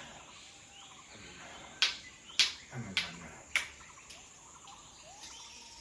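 Four sharp clicks or strikes in quick succession, a little over half a second apart, over a faint background of chirping.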